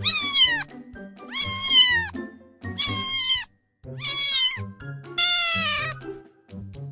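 Cat meowing five times, each call high-pitched, under a second long, and dropping in pitch at the end; the last is a little longer and flatter. Background music plays underneath.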